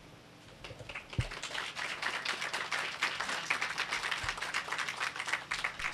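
Audience applauding, the clapping starting about a second in and going on steadily.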